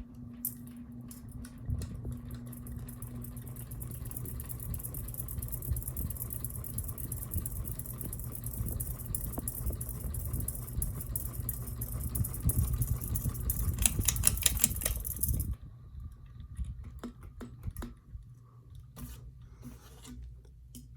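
Ceiling fan running with a rattling, ticking noise that grows louder, then cuts off sharply about fifteen seconds in; scattered light clicks follow.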